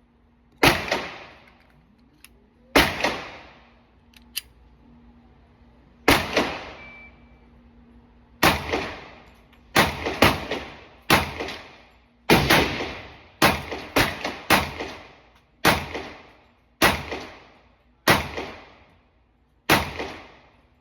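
Glock 30 Gen4 .45 ACP pistol firing about fifteen shots at an uneven pace, sometimes two or three in quick succession. Each shot trails off in a ringing echo.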